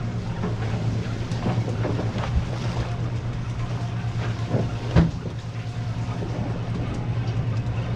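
Boat engine running steadily with a low hum, while the boat sits on the water; one sharp knock about five seconds in.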